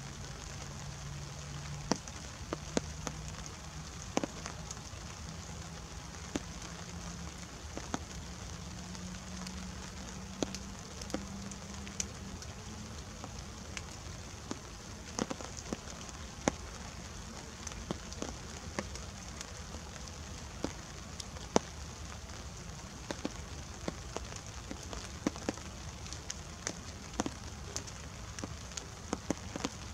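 Light rain: irregular drops tick sharply close by over a steady hiss and a low rumble. A faint low drone climbs slowly in pitch over the first twelve seconds or so, then fades.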